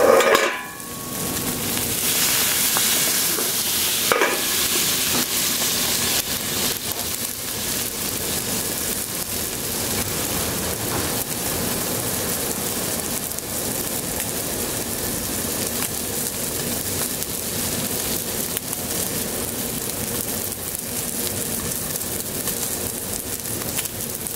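Eggs and water sizzling on a hot Camp Chef flat-top griddle under an aluminium basting dome, a steady frying hiss as the water steams to baste the eggs. The hiss swells about two seconds in, and there is a single knock about four seconds in.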